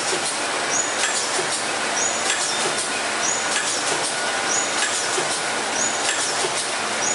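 Multi-track pouch packaging machine running: a steady mechanical clatter with clicks and a short high chirp repeating about every 1.2 seconds, one beat per machine cycle.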